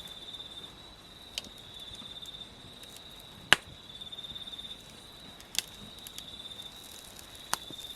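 Insects trilling steadily at a high pitch, swelling into pulsing phrases every couple of seconds. Four sharp clicks fall about two seconds apart; the loudest is about halfway through.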